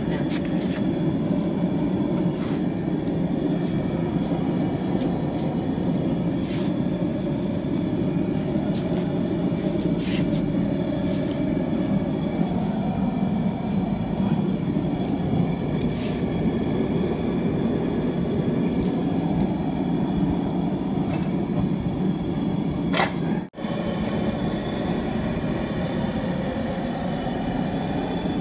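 Steady low roar, with a few faint taps and a short dropout about 23 seconds in.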